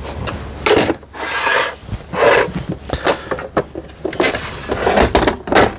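Short rubbing and scraping strokes, about seven of them, from a screwdriver turning a screw into the plastic housing of a Lion 419S household sewing machine and the machine being shifted on the workbench.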